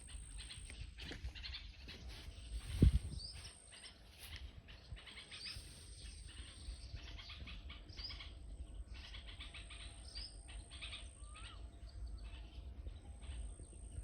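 Small birds chirping repeatedly, over a high thin tone that comes and goes. A single low thump about three seconds in.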